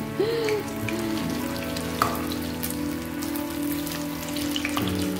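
Hot oil sizzling and crackling steadily around battered stuffed tofu (tahu isi) deep-frying in a pan, with background music underneath.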